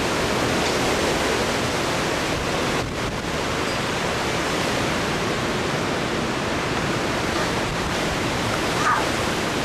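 Strong hurricane wind gusting through trees: a loud, steady rush of noise, with wind buffeting the microphone.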